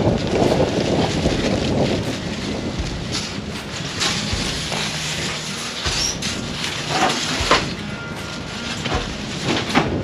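Gusty wind buffeting the microphone, strongest at the start and easing after a second or two. A handful of sharp knocks and rattles follow as a large, light sheet panel is handled through a shed doorway.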